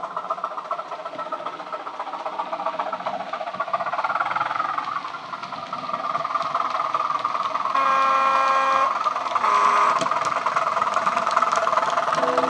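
Class 205 'Thumper' diesel multiple unit sound from a Legomanbiffo DCC sound decoder, played through the small speaker of a Bachmann OO gauge model. The engine runs steadily and grows louder as the unit approaches, with a horn sounded for about a second roughly eight seconds in and a shorter horn note near ten seconds.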